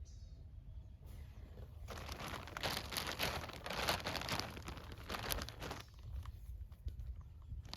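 Clothing rustling and crinkling as it is handled, a busy patch of crackly rustle about two to six seconds in.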